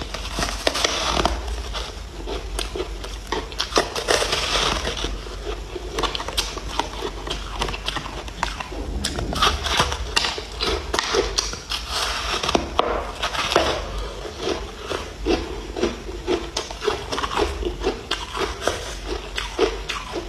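Ice being bitten and chewed: dense, irregular crunching and cracking that runs on without a break.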